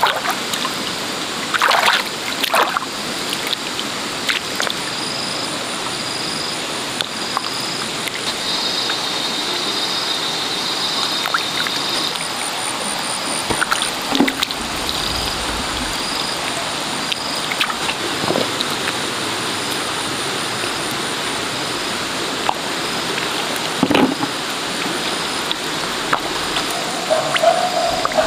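Hands sloshing and squelching through shallow water and soft mud while digging for mussels, with a few short splashes. A faint high chirp repeats in the background a little faster than once a second through the middle stretch.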